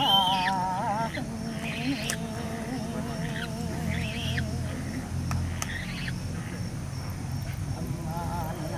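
A slow sung chant with a wavering vibrato: loud for about the first second, faint through the middle and rising again near the end, over a steady low hum, with a few short high chirps.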